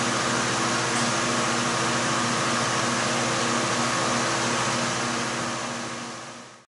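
Steady mechanical whir with a faint hum, fading out near the end.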